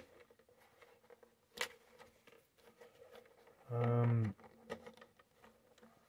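A few light clicks and knocks from handling the plastic RC crawler body, and about four seconds in a short low hum lasting about half a second.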